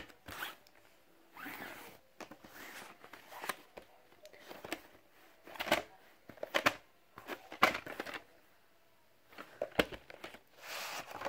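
Handling of VHS tape cases, a plastic clamshell and a cardboard slipcase: scattered clicks and knocks with brief bouts of rustling and scraping as they are picked up and moved about.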